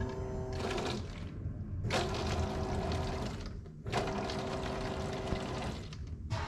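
Electric fuel pump priming new fuel lines: three bursts of a steady pump hum, each with fuel rushing and splashing out of the open line for one to two seconds, stopping briefly in between.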